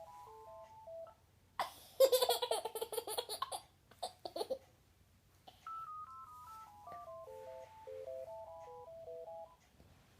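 Mobile phone ringtone playing a simple beeping melody of single electronic notes, which breaks off about a second in. A baby then bursts into laughter, pulsing belly laughs for about three seconds, and the beeping ringtone melody starts again about halfway through, stopping near the end.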